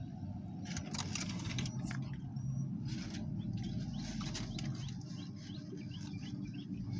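Close-up chewing with wet mouth clicks and smacks while eating a taco, in clusters about a second in and again around three to four seconds in, over a low steady hum.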